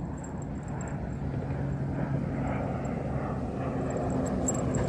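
Steady low engine drone that slowly grows louder.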